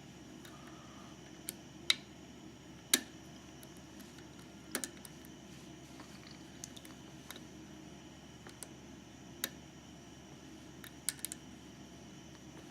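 Scattered small clicks of a short hook pick and tension wrench working the pins inside a GeGe eAP2000 pin-tumbler lock while it is being picked. About half a dozen sharp clicks come at uneven gaps over a low steady hum, the loudest two about two and three seconds in.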